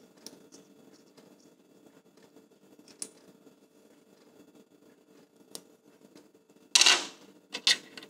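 Faint, scattered clicks as a small steel 1/4-inch screw and a plastic quick-release plate are handled, then near the end a loud brief rattle followed by two sharp clinks as small metal screws are moved about on a tabletop.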